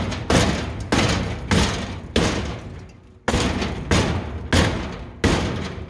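Rubber mallet pounding a rusty steel truck fender to work out a bend: about nine blows, roughly one every half second to two-thirds of a second, with a short pause about three seconds in. Each blow rings briefly through the sheet metal.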